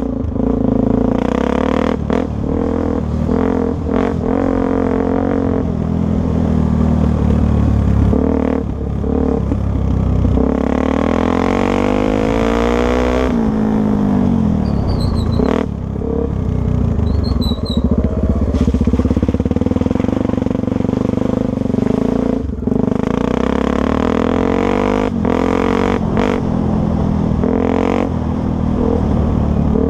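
Honda Tornado 250's single-cylinder four-stroke engine running, its revs rising and then dropping back about halfway through, with frequent knocks and rattles.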